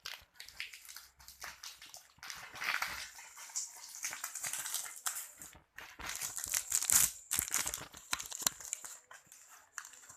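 Rustling packaging and clicks and knocks of parts being handled while a tripod ring light is unboxed, in uneven bursts.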